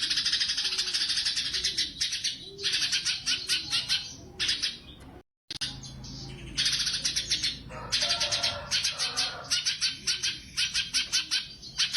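Cucak cungkok singing long runs of fast, rapidly repeated high chirping notes, broken into bursts, with the sound cutting out completely for a moment about five seconds in.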